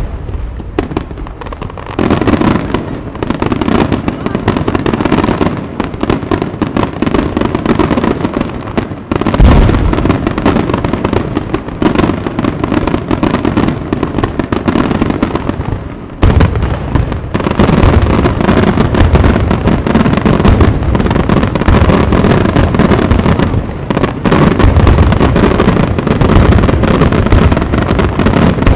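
Aerial fireworks barrage: a dense, unbroken run of rapid bangs and crackling shell bursts, surging heavier about nine seconds in and again about sixteen seconds in.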